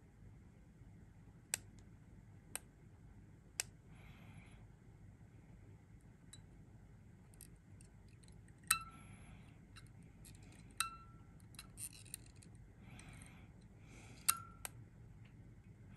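Metal tweezers clicking and clinking against the heated wire coils on a rebuildable atomiser deck as the coils are pinched into shape. There are three sharp clicks about a second apart, then three louder clinks with a brief ringing tone, along with a few small ticks and soft breaths.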